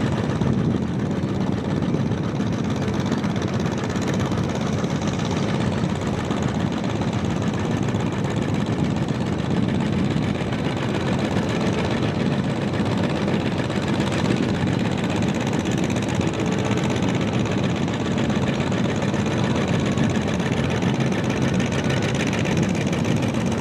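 John Deere 40's two-cylinder engine running steadily under load as it drags a tractor-pulling sled at a crawl, with another tractor engine running behind it.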